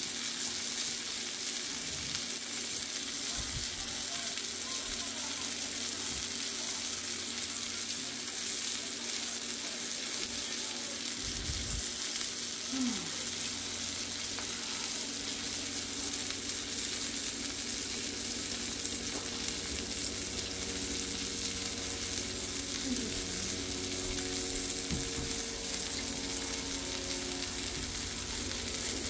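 King mackerel steak sizzling steadily in butter and garlic in a frying pan: a continuous, even, high-pitched frying hiss.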